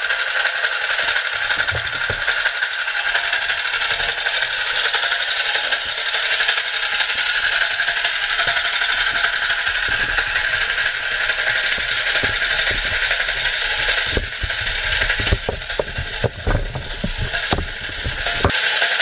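Small engine of a self-propelled rope winch running steadily with a fast, dense rattle. A few low knocks come near the end.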